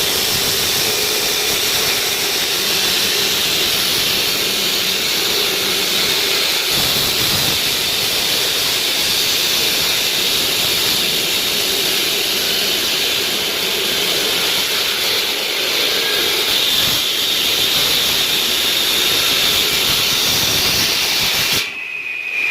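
Concrete cutting machine running steadily at work: a loud, even hiss with a faint steady hum underneath. It cuts off abruptly near the end.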